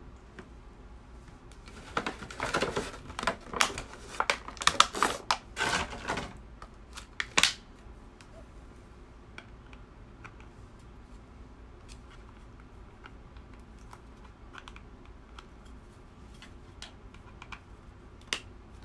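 Rapid clicking and rattling of hard plastic as an anime figure is handled and fitted onto its black plastic display base, starting about two seconds in and dying away by about eight seconds, then only occasional faint ticks.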